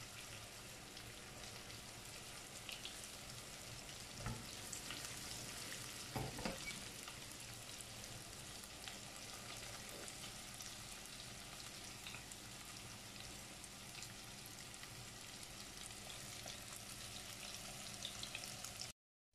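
Breaded mushrooms deep-frying in hot oil in a deep pot: a steady sizzle, with a couple of light knocks about four and six seconds in.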